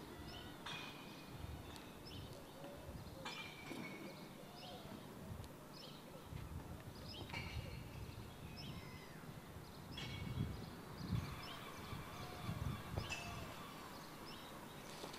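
Faint open-air ambience: birds chirping in short repeated calls, with low rumbles that swell briefly about two-thirds of the way through.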